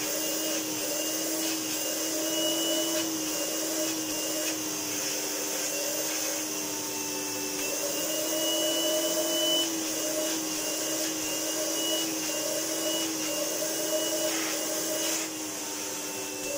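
Hoover Enigma Evo PU31 bagged upright vacuum cleaner's 350-watt motor running, really quiet: a steady hum with a thin high whine and airy hiss, wavering slightly in pitch.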